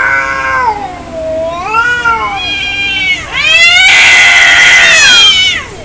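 Angry cats fighting: a long wavering yowl that bends up and down in pitch, then climbs into a loud, harsh screech about three and a half seconds in that breaks off near the end.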